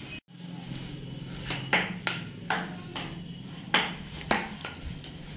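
Table tennis ball clicking off rubber paddles and bouncing on a wooden table in a loose, uneven rally: several sharp clicks at irregular gaps over a low steady hum.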